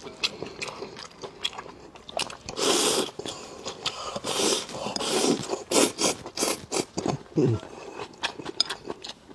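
Close-miked eating of spicy beef intestine noodles: chewing with many quick wet mouth clicks and smacks, broken by a few longer hissing bursts of about half a second.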